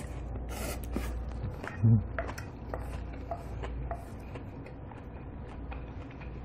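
A spoon scraping and clinking in a brass bowl of bibimbap, with small scattered ticks and scrapes and mouth sounds of chewing. There is one short low thump about two seconds in.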